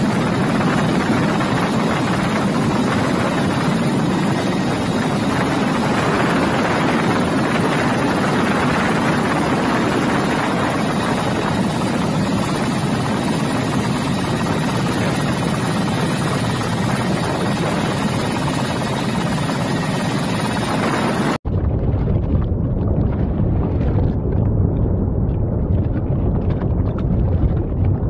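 Steady helicopter rotor and engine noise heard from aboard the aircraft for about twenty seconds, then an abrupt cut to a deep, gusty low rumble.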